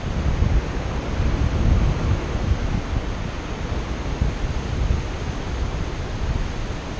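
Airflow buffeting a paraglider pilot's camera microphone in flight: a steady rushing noise, heaviest in the low end, rising and falling in gusts.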